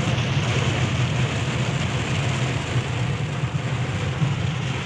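Steady low rumble and hiss of a vehicle travelling in heavy rain.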